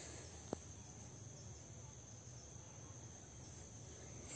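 Faint, steady high-pitched insect trilling in tropical undergrowth, with a single sharp click about half a second in.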